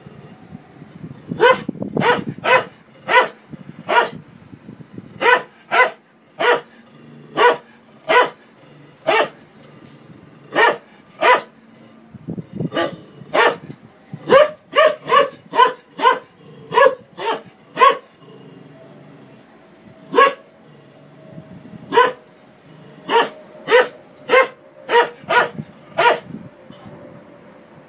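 A medium-sized dog barking repeatedly at a front-loading washing machine as its drum turns: dozens of short, sharp barks in uneven runs, with a few brief pauses.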